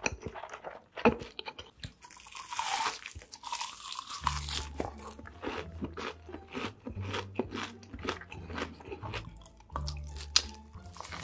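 Close-miked chewing of a mouthful of pizza, a steady run of crunching and wet crackles. There is a sharp loud bite about a second in and another near the end.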